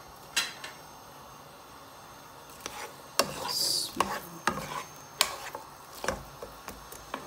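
Slotted spatula stirring sliced onions frying in oil in a non-stick pan: one knock about half a second in, then from about two and a half seconds in a run of clacks and scrapes against the pan, over a faint sizzle.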